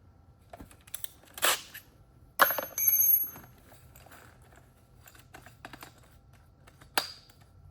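Clicks and knocks of metal tools and a drill rig being handled and adjusted. About two and a half seconds in comes one sharp metallic clink that rings briefly, and another ringing click comes near the end. The drill is not running.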